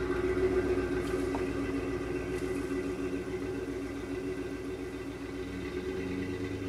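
Pickup truck engine running steadily as the truck drives away, growing slightly fainter.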